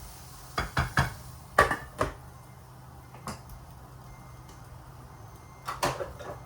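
Kitchen knocks and clatter: a quick run of three knocks about half a second in, two more around a second and a half later, a single one in the middle, and another quick cluster near the end, over a low steady hum.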